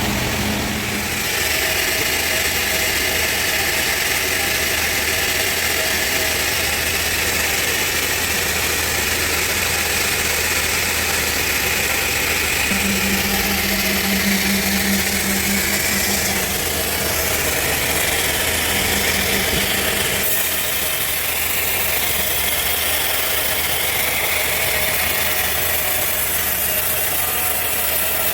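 Sawmill machinery running steadily: an engine drone with a higher whine over it, and a low hum that comes in for a few seconds about halfway through.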